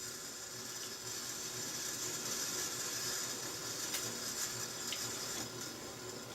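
Metal lathe taking a light cut: a steady hiss of the cutting tool on the turning workpiece, with a couple of faint clicks about two-thirds of the way through.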